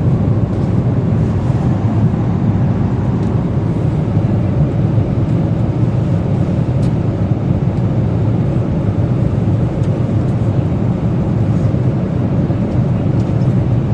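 Steady low roar of a passenger aircraft cabin in flight: engine and airflow noise, unchanging throughout, with a few faint ticks.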